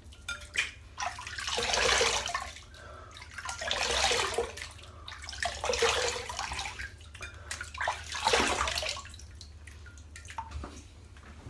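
Water splashed from cupped hands onto the face at a sink, about four splashes two seconds apart, with the tap running: rinsing off after a shave.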